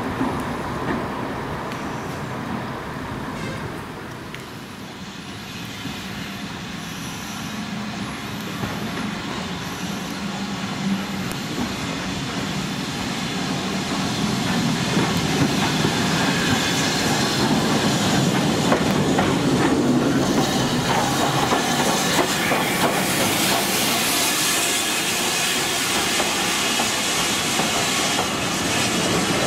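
A steam-hauled train passing close by: a BR Standard steam locomotive running tender-first with steam hissing, then its coaches rolling past with wheels clicking over the rail joints. It gets louder about halfway through and stays loud to the end; before that a train is heard more faintly.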